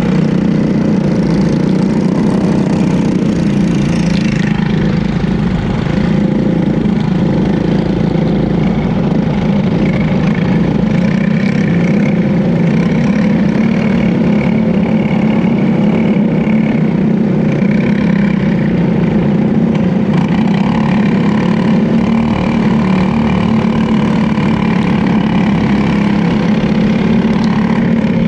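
Briggs & Stratton LO206 single-cylinder four-stroke kart engine running at a fairly steady speed, heard close up from onboard the kart, among other karts.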